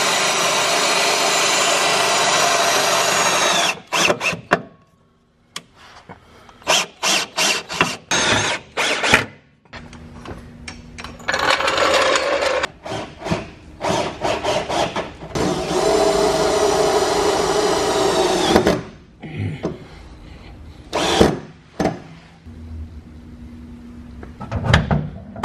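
Cordless drill driving screws up into a car's underbody to fasten a steel skid plate. It makes several long, steady runs of motor whine, with clusters of short trigger-pull bursts between them. A couple of sharp knocks come near the end.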